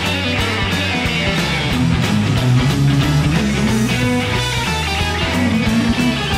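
Electric guitar playing an up-tempo rock part over a band backing with bass and a steady drum beat.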